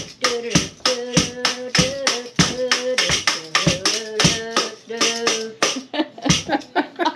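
Ugly stick being played: a stick studded with beer bottle caps, with a tin can, is thumped on the floor in a steady beat about every 0.6 s, the caps jingling on each stroke with lighter taps between. A voice carries a wordless tune along with it.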